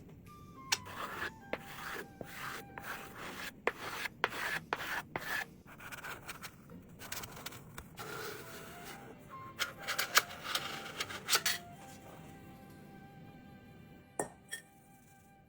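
Kitchen prep noises, irregular rubbing and scraping with sharp clicks, over soft background music; the handling noise dies down in the last few seconds.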